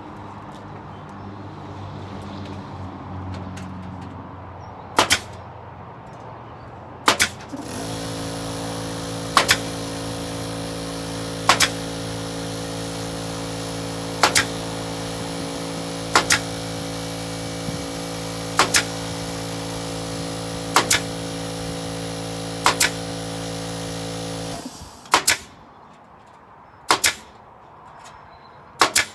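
Pneumatic nail gun firing shot after shot, about one every two seconds, each shot a sharp double crack. An air compressor runs steadily underneath for much of the stretch, then cuts off while the nailing goes on.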